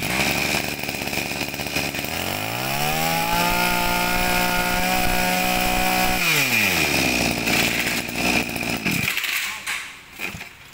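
Shindaiwa 23cc two-stroke brush cutter engine running. It is revved from idle up to full throttle about two seconds in, held there for a couple of seconds, then let drop back to idle, with the level dipping near the end.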